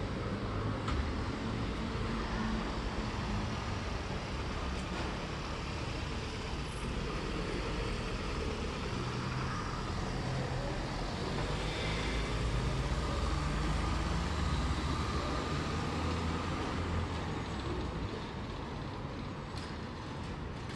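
Van engine running at idle close by, a steady low rumble that grows a little louder in the middle, over general street noise.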